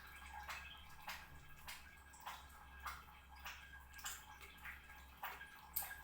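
A cat eating noisily, with faint wet smacking and chewing clicks at irregular intervals, about two a second.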